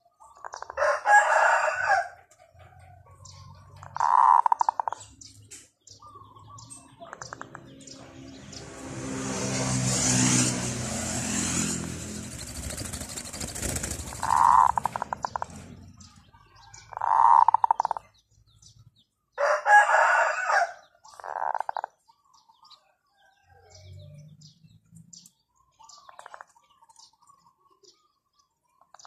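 Roosters crowing several times, with shorter calls in between. In the middle an engine passes, swelling and then fading.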